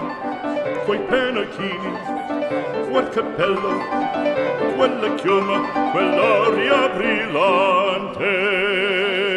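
Operatic singing with strong vibrato over instrumental accompaniment, ending on a long held high note.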